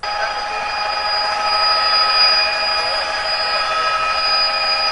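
Helicopter in flight heard from inside the cabin: a steady, loud running noise with several high, steady whining tones from the turbine and gearbox.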